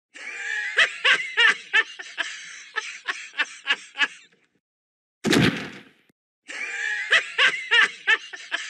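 A cartoon character's laugh, a rhythmic ha-ha-ha of about three beats a second. About five seconds in comes one loud thud as he falls off a desk chair to the floor. Then the same laugh starts again.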